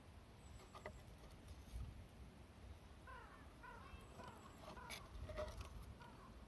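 Faint outdoor bird calls: from about halfway, a quick series of short falling chirps over a low background rumble, with a couple of light clicks.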